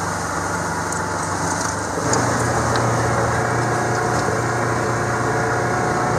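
Side-by-side utility vehicle's engine running as it drives along a gravel track, a steady low hum that changes and gets louder about two seconds in.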